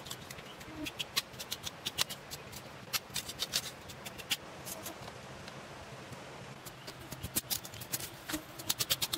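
A string of irregular sharp clicks and light snaps, crowding into quick runs near the end, over a faint steady low hum.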